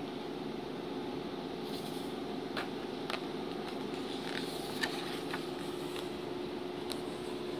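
Glossy yearbook pages being handled and turned, giving a few short sharp crackles over a steady background hum.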